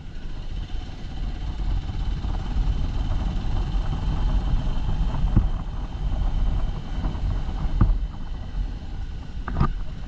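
Motorcycle engine running at a steady cruise while riding along a road, mixed with a heavy, low wind rumble on the microphone.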